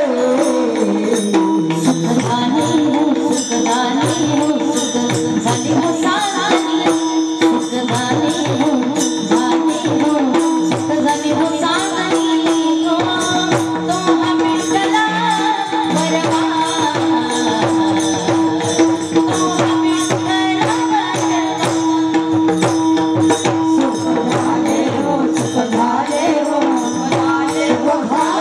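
Music: a steady held drone note under a gliding melody, with quick percussion strokes throughout.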